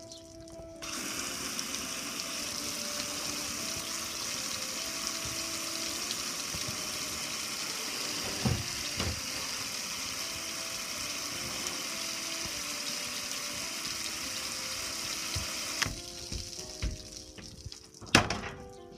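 Garden hose with a hose-end sprayer jetting soapy water onto a metal gas grill: a steady hiss that starts about a second in and cuts off suddenly near the end. A couple of knocks come midway, and a few more after the spray stops.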